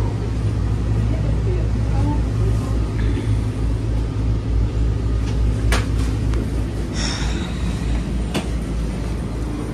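Low rumble inside a Terminal Link cable-hauled people-mover car as it pulls into the station and stops. A sharp click a little past halfway, a short hiss about a second later and a second click as the doors open, while the rumble fades.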